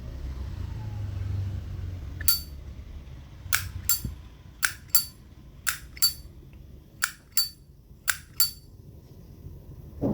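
The hinged metal lid of a 1965 Zippo lighter being flipped open and snapped shut about five times. Each open and close is a pair of sharp metallic clinks with a short ring, the Zippo's characteristic lid sound.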